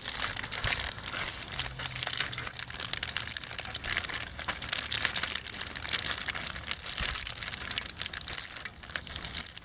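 Plastic zipper bag crinkling continuously as hands reach in and pull out raw chicken-breast pieces.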